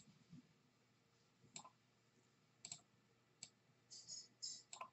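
Faint, scattered clicks of a computer mouse, a few single clicks and then a short run of them near the end, over near silence.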